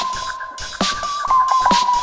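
Background electronic music with a steady drum-machine beat and a held synth note that shifts slightly in pitch.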